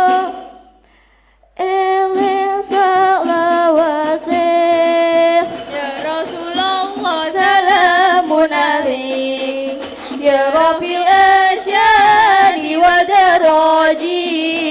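Children's rebana group: a held sung note cuts off, a pause of about a second and a half, then the voices resume a winding, ornamented melody over rebana frame-drum beats.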